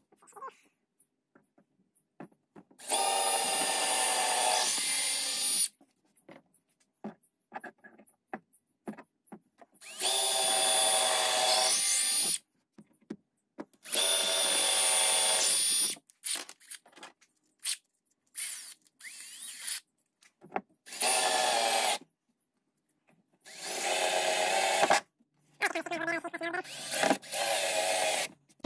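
Cordless drill-driver running in six bursts of a couple of seconds each, with a steady motor whine, as it bores holes into a plywood floor panel. Near the end it drives a long screw into the wood. Small clicks and handling noises come between the bursts.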